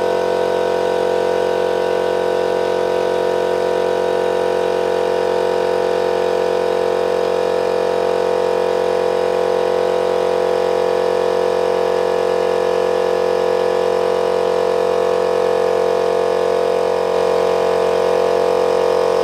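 50-litre piston air compressor running steadily, its motor and pump charging the tank with air now that the valves are repaired and it pumps again.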